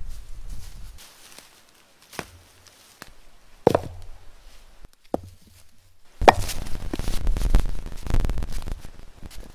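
Footsteps rustling through dry leaf litter, then a few single knocks of stone on stone, and from about six seconds in the heavy scraping and thudding of a large flat rock being shifted by hand over leaves and soil.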